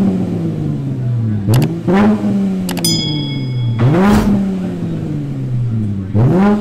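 Dodge Challenger SXT's 3.6-litre V6 with the rear mufflers deleted and straight pipes to the tips, revved in short blips from idle: each rev rises sharply and falls back. There is a quick double blip about a second and a half in, and further blips around four and six seconds.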